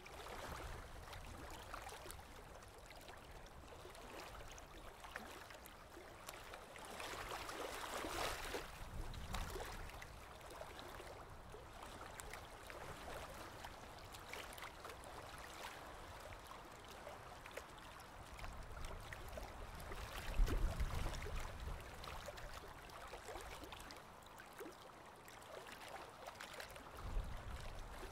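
Aquarium water trickling and gurgling in a steady hiss, swelling briefly early on. Low rumbles come twice, the louder one about two-thirds of the way through.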